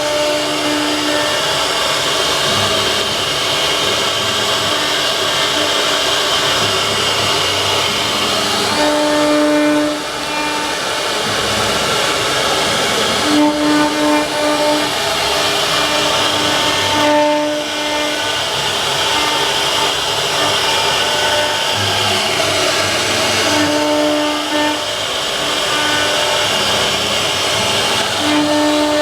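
Wood CNC router running and cutting, a loud steady motor whine with a hissing cutting noise. A lower steady tone comes in for a second or so every few seconds and then drops out.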